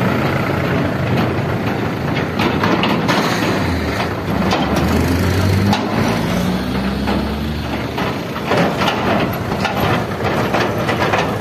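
Mahindra 575 DI tractor's diesel engine running as it pulls away with an empty tipping trailer, revving up in the middle, with knocks and rattles throughout.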